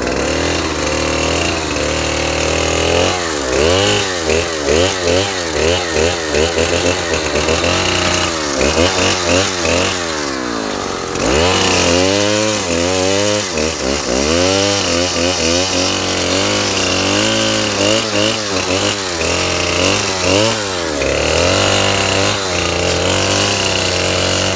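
Stihl two-stroke chainsaw cutting into a tree trunk. The engine revs up and down about once a second, with steadier full-throttle stretches while the chain is in the wood.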